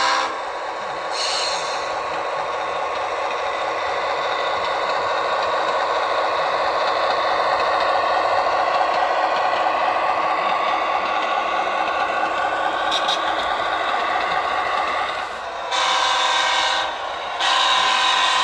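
The Tsunami2 sound decoder in an Athearn HO-scale MP15AC diesel switcher plays the sound of its EMD 645 diesel engine running steadily through the model's small speaker, slowly growing louder. Near the end come two louder held blasts made of several steady tones, each lasting about a second.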